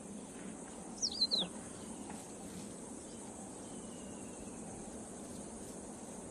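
Steady high-pitched insect buzz of the dry savanna. About a second in, a bird gives a quick falling call of a few notes, the loudest sound, and later a fainter falling whistle.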